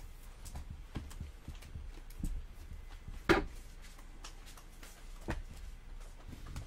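Trading cards being handled: soft clicks, taps and slides of the cards against each other and the table. The sharpest tap comes a little over three seconds in.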